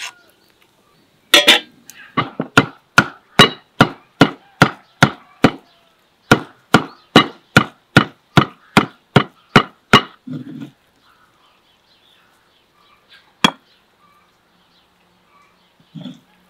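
A steel cleaver chopping raw meat on a wooden stump block to mince it, in a steady run of sharp chops about two and a half a second, with a brief pause partway through. The chopping stops about two-thirds of the way in, followed by one more single chop a few seconds later.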